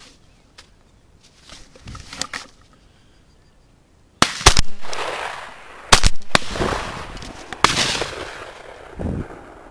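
Several shotgun shots, starting about four seconds in and spread over roughly three and a half seconds, each with a long echoing tail.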